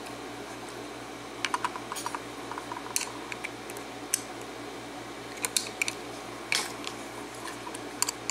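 Irregular small metal clicks and taps of a tool working at a Defiant padlock's retaining clip, trying to pry the clip off to take the lock apart.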